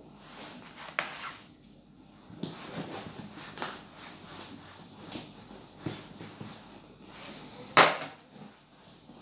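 Whiteboard being wiped with an eraser: a run of uneven rubbing and scraping strokes across the board, with one sharp knock near the end.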